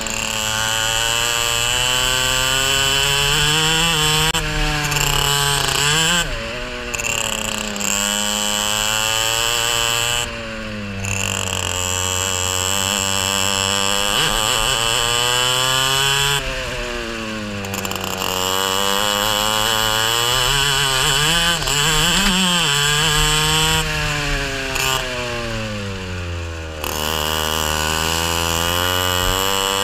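Racing kart engine heard from on board at full race pace, its pitch climbing steadily along each straight and falling sharply under braking for the corners, several times over. A high rasp over the engine note drops out each time the throttle is lifted.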